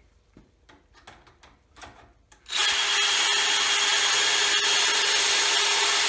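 A few faint clicks and taps as the drill bit is set into the jig's guide bushing. Then, about two and a half seconds in, a DeWalt 20-volt cordless drill starts and runs at a steady speed, its brad-point bit with a stop collar boring a dowel hole into the wood through a doweling jig.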